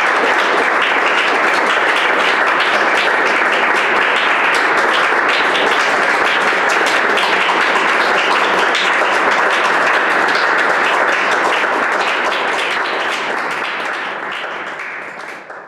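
Audience applauding steadily, a dense patter of many hands clapping, fading out over the last few seconds.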